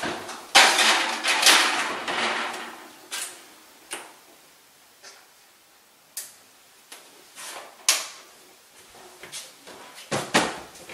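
Kitchen handling sounds: a scraping, rustling stretch in the first two seconds, then scattered knocks and clicks of dishes and utensils being moved and set down.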